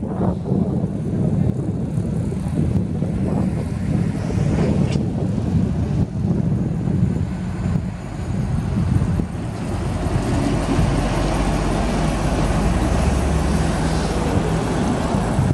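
Heavy vehicles, an articulated lorry and box vans, driving past on the road, with a steady engine and tyre rumble. Tyre hiss grows in the second half.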